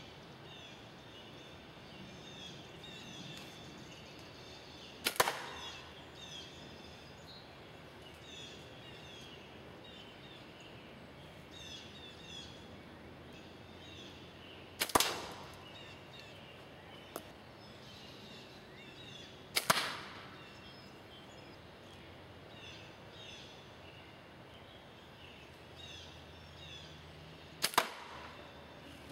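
Four slingshot shots at a paper target on a cardboard box, each a sharp double crack, at uneven intervals of about five to ten seconds. Birds twitter faintly in the background.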